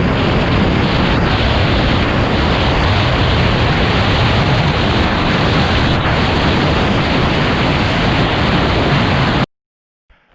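Loud, steady wind buffeting the camera microphone, as when riding fast downhill, that cuts off suddenly about nine and a half seconds in.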